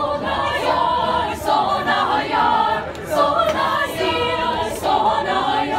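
A youth choir, mostly girls' voices, singing a cappella. The voices come in together right at the start, and the song goes on in phrases of a second or two.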